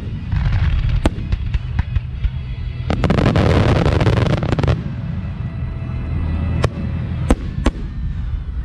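Aerial fireworks shells bursting with sharp bangs over a steady low rumble. About three seconds in, a dense crackling burst lasts under two seconds, and several more bangs follow near the end.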